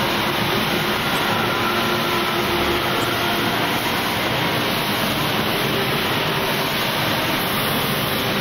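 Steady factory-floor machinery din: an even, unbroken noise with a faint hum and no distinct knocks or voices.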